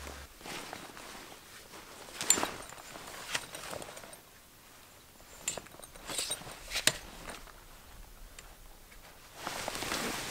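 Tschum Lavvuu tipi tent being pitched by hand: scattered fabric rustles and a few sharp clicks from the pole and footsteps on pine needles, then a longer burst of rustling near the end as the tent is raised on its centre pole.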